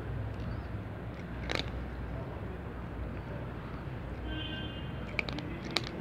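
A cat chewing dry kibble, with a few sharp crunches, one about a second and a half in and a couple more near the end, over a steady low background hum.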